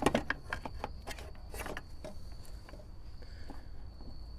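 Gloved hands working around a metal battery tray and engine-bay wiring: a quick run of light clicks and knocks in the first couple of seconds, then only a few faint taps.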